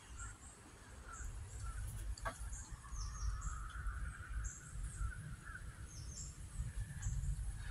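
Faint low rumble with distant bird calls, and a single click about two seconds in.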